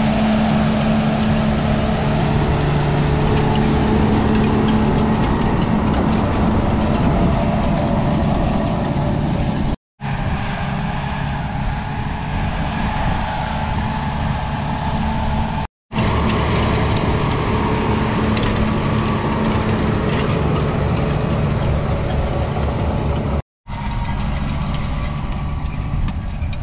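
John Deere tractor's diesel engine running steadily under load as it pulls a bed former through the soil. The sound cuts out briefly three times.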